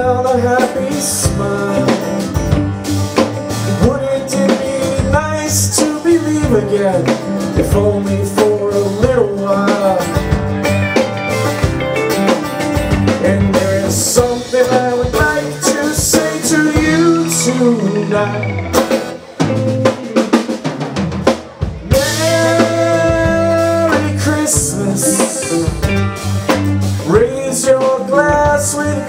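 Live band playing an instrumental passage: a drum kit with snare rimshots and bass drum under a lead melody that bends and slides in pitch. The band drops back briefly about two-thirds of the way through.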